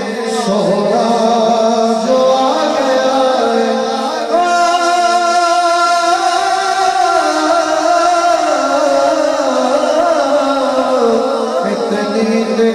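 A man singing a naat, a devotional poem in praise of the Prophet, into a handheld microphone, with melodic notes that slide up and down. He holds one long note about four seconds in.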